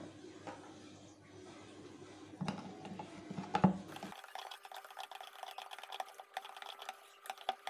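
Metal spoon stirring egg and milk in a plastic measuring jug, rapid even clicking and scraping against the sides from about halfway through. A single sharp knock comes just before the stirring starts.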